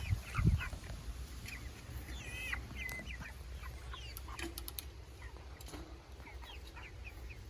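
A flock of four-week-old meat chickens peeping and cheeping, with many short, high chirps scattered through, over a steady low rumble. There is a low thump right at the start and a few short clicks about halfway through.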